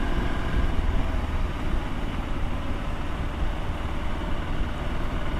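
Motorcycle engine running steadily, a continuous low rumble with no change in pitch.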